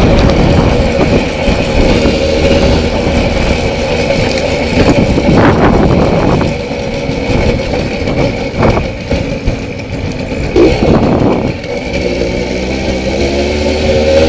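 Single-cylinder two-stroke engine of a Zündapp CS 50 moped with a 70 cc cylinder kit, running while the moped is ridden, heard from the handlebars. It is loud, drops back for a stretch around the middle, and picks up again near the end with a clear engine note.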